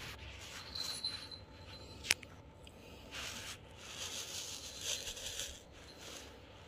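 Kittens playing with a toy on a rug: faint rustling and scraping, a small bell jingling briefly about a second in, and a sharp click near two seconds.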